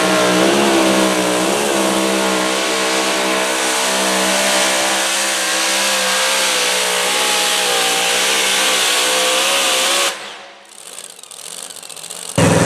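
Supercharged engine of a modified two-wheel-drive pulling truck running at full throttle while it drags a pulling sled. The engine note wavers at first, then holds steady. It drops away sharply about ten seconds in, and a loud engine cuts back in just before the end.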